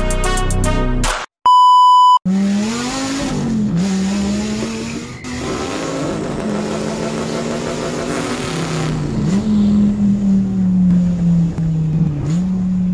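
Music cuts off about a second in and a short electronic beep sounds, then a car engine sound effect starts and keeps running, its revs rising and dipping several times.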